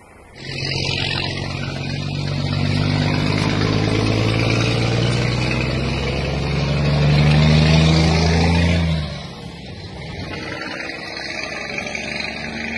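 A motor vehicle's engine running loud, its pitch creeping up, then falling away suddenly about nine seconds in to a quieter, steady engine and road noise.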